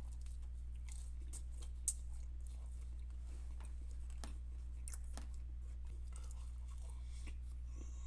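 Close-mic chewing and crunching of fried catfish nuggets: irregular crisp crackles from bites and chews over a steady low hum.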